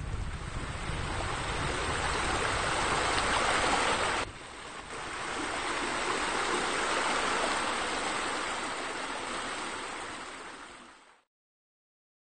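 Steady rushing-water noise, like a stream or surf, with an abrupt change about four seconds in where the deep rumble drops away; it fades out into dead silence shortly before the end.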